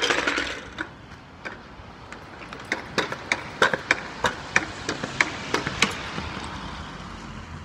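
A loud knock at the start, then a pogo stick knocking with each bounce, about three times a second for around three seconds, while a car passes.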